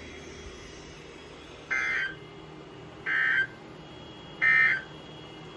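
Three short bursts of EAS/SAME digital data tones over weather radio, about a second and a half apart. They are the end-of-message code that closes a severe thunderstorm warning broadcast.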